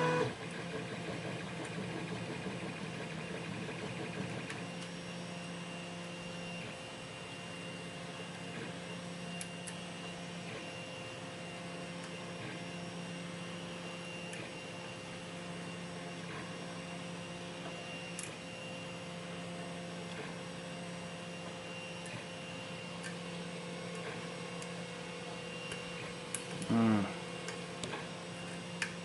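3D printer running, its stepper motors whining in several steady tones, with a brief louder whine that glides up and down in pitch near the end. A few faint ticks sound over it.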